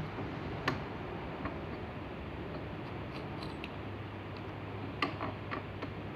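Black iron threaded pipe fittings being handled and screwed together, giving light metallic clicks and taps: one sharp click about a second in, a few small ticks in the middle and a quick cluster of clicks near the end, over a steady low hum.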